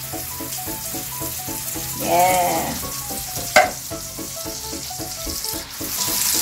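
Crushed tomatoes sizzling in a hot frying pan of oil and garlic, with one sharp knock about three and a half seconds in. Light background music of short repeated notes plays throughout.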